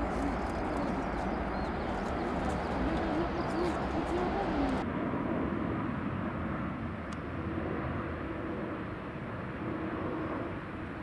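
A Boeing 747-400 freighter's four jet engines rumbling on the runway after touchdown, with a wavering whine in the noise. About five seconds in, this cuts to the quieter, steadier rumble of an Airbus A330-343's Rolls-Royce Trent 700 engines on final approach.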